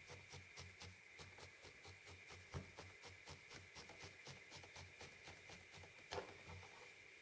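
Felting needle stabbing repeatedly through wool into the felting pad, tacking a shaped wool piece down: faint, quick, regular pokes about three or four a second, with a couple of firmer jabs.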